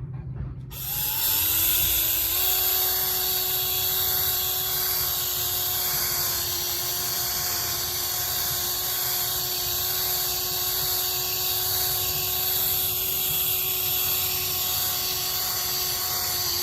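Electric power buffer starting up about a second in, its motor whine rising briefly in pitch and then running steadily while buffing out plastic body panels.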